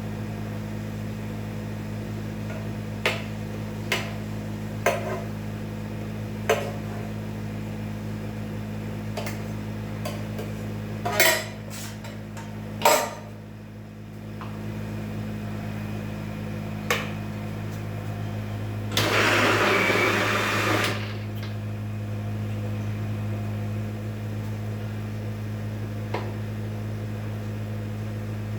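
Kitchen clatter as boiled tomatoes are spooned into a mixer-grinder jar: a spoon knocking against the pot and jar about eight times, two of them loudest near the middle, with a rushing noise of about two seconds roughly two-thirds through. A steady low electrical hum runs underneath.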